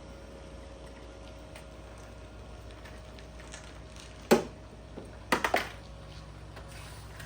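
A sharp click about four seconds in, then a quick run of three or four clicks a second later, from handling a new spark plug while gapping it. A steady low hum runs underneath.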